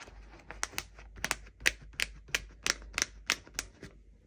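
Pages of a disc-bound planner being flipped over its discs, a quick run of sharp clicks at about five a second that stops about three and a half seconds in.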